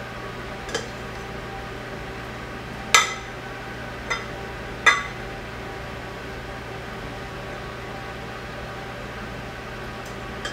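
A spoon tapping against the rim of a glass wide-mouth mason jar as sour cream is knocked off it: four ringing clinks in the first five seconds, the second and fourth loudest, over a steady hum.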